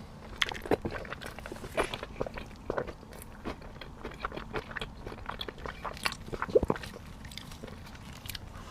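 Close-miked ASMR eating of bread: irregular bites, soft crunches and chewing, with the sharpest snap a little before the end.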